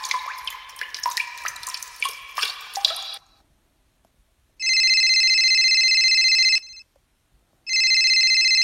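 A quick run of pitched water-drop plinks, then after a pause a telephone ringer trilling twice, each ring about two seconds long.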